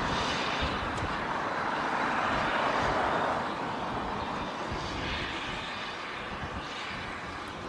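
A train running, an even rushing rail noise that swells to its loudest about three seconds in and then slowly fades.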